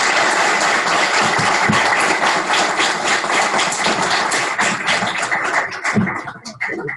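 Audience applauding, a dense run of claps that thins out and dies away about six seconds in.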